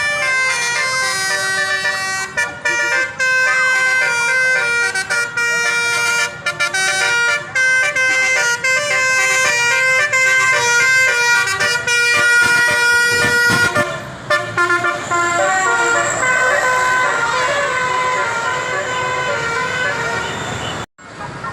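Bus telolet horn (a Basuri multi-tone air horn) playing a rapid melody of stepped notes. After about 14 seconds the melody gives way to a rushing noise with fainter horn tones under it.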